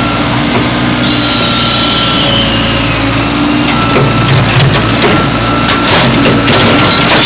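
Backhoe crushing a car body: its engine runs steadily under load while the bucket crunches the sheet metal, with a run of sharp cracks and snaps in the second half.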